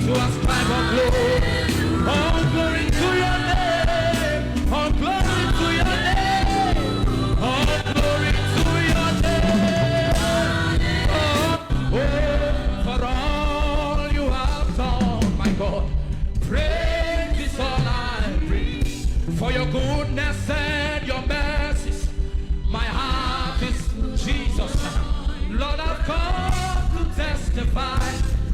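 Live church worship music: a band with a steady beat backing singers. Just before halfway the music briefly drops out, then comes back with a heavier bass beat.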